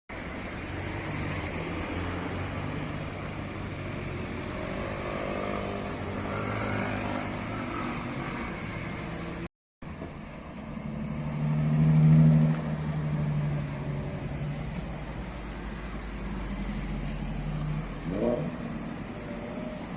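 Car engines revving and accelerating past, in two clips joined by an abrupt cut about halfway through. The loudest moment is a deep engine pass about twelve seconds in.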